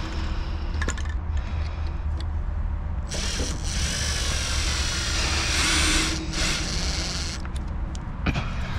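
Cordless drill driving a screw into a hidden deck-board clip: a high whirring that runs in a few short spurts for about four seconds, starting about three seconds in, over a steady low rumble.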